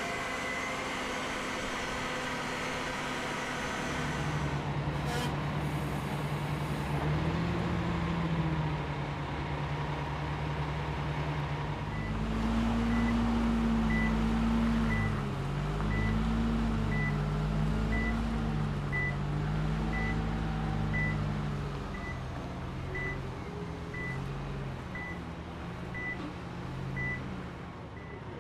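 Engine of a Kirow Slag Taurus slag pot carrier running while it manoeuvres, its revs rising and falling. From about halfway through, its reversing alarm beeps about once a second.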